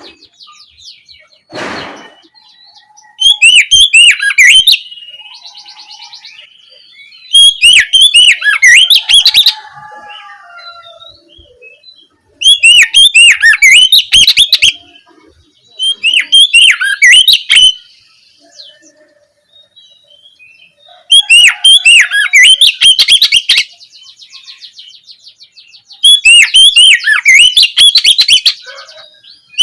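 Oriental magpie-robin (kacer) singing its loud open 'ngeplong' song in six bursts of about two seconds each, made of rapid, sharply repeated whistled notes, with softer twittering trills in between.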